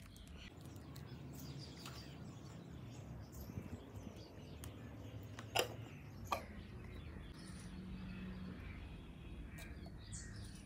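Faint outdoor background with bird chirps, broken about halfway through by two sharp taps less than a second apart.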